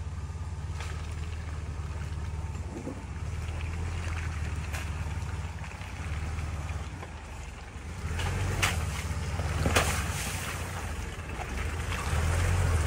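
Jeep TJ engine running low and steady as it crawls in low range over rocks and through a muddy puddle, getting louder as it comes closer. Two sharp knocks come about two-thirds of the way in.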